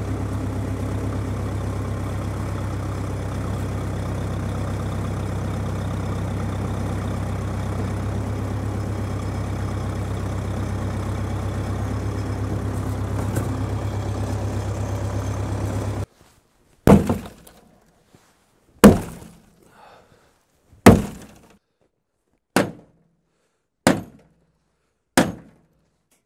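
Backhoe tractor's engine running steadily, then cutting off abruptly about sixteen seconds in. Six sharp ringing strikes on metal follow, one to two seconds apart, as the bent steel drum plow is worked to straighten it.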